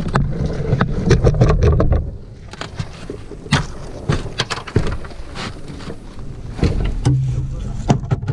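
Handling noise on an inflatable zodiac boat: a low rumble for about the first two seconds, then irregular sharp knocks and taps against the rubber tube of the hull.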